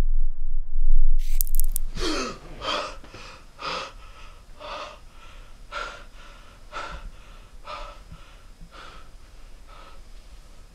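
A man waking with a start and gasping for breath, then panting heavily, about one breath a second, each fainter than the last. It opens with a low rumble and a sudden sharp noise about a second in.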